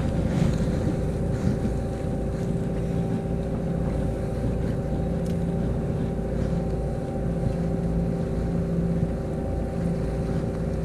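Fishing boat's engine running steadily: a constant low drone with a steady hum over it.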